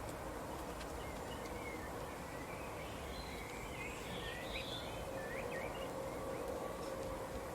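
Birds giving short, scattered chirps over a steady outdoor background noise, with a faint steady hum underneath.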